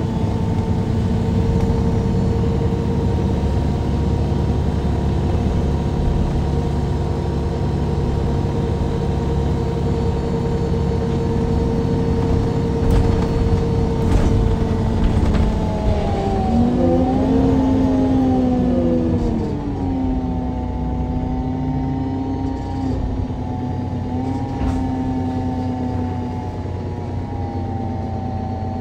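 Natural-gas engine and Voith automatic gearbox of a MAN Lion's City G NG313 CNG articulated bus, heard from directly above the engine at the rear. It runs steadily under way. A little past halfway the engine note swings up and then down, and it settles at a lower, steady pitch for the rest.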